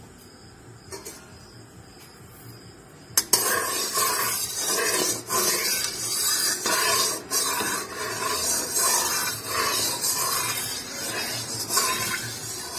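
Steel spatula scraping and stirring around a metal kadhai, spreading oil across the pan. It starts about three seconds in with a sharp clink, then continues as irregular rough scraping strokes.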